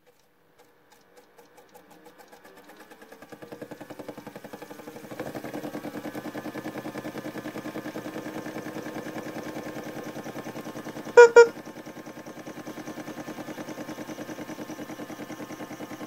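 Small electric motor of a toy washing machine turning its drum full of laundry: a rhythmic, pulsing whir that starts slow and speeds up and grows louder over the first few seconds, then runs steadily. About eleven seconds in come two short, loud beeps.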